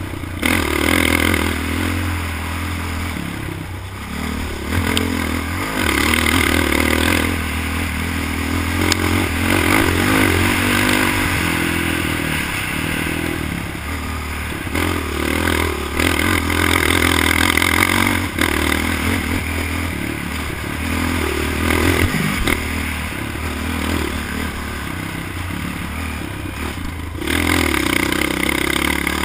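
ATV (quad) engine under hard riding on a dirt track, surging up and falling back every few seconds as the throttle is opened and eased, heard onboard with wind and rattling over the rough ground.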